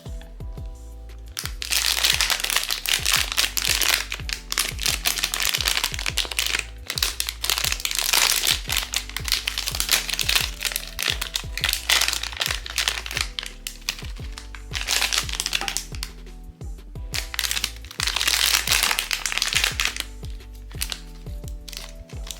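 Blind box packaging crinkling and rustling in long stretches as it is handled and torn open, over steady background music.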